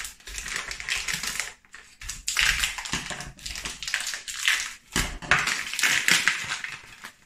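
Plastic vacuum pack crinkling and rustling in irregular bursts as the cooked beef short ribs inside are worked out of it by hand.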